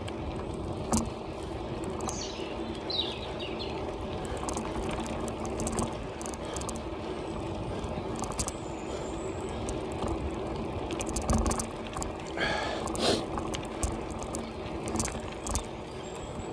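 Bicycle ridden along a tarmac cycle path: steady tyre and drivetrain noise with frequent clicks and rattles from the bike.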